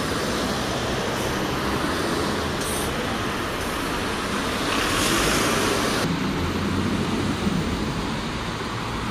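City street traffic: a single-deck bus drives past close by, its engine and tyre noise loudest about five seconds in, with cars running behind it.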